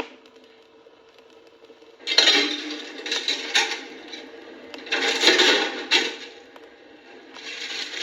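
Coin-operated machine mechanism working: three clattering, rattling bursts with sharp clicks, over a faint steady hum.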